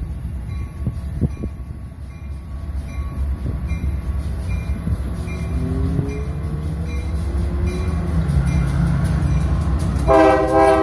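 Union Pacific freight train's diesel locomotive approaching, its low engine rumble growing louder, with a bell ringing steadily about twice a second. About ten seconds in, the locomotive's air horn sounds, the loudest thing here.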